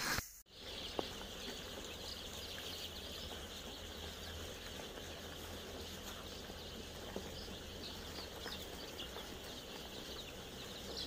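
A large flock of day-old chicks peeping together: a dense, steady chorus of high, short cheeps over a low hum.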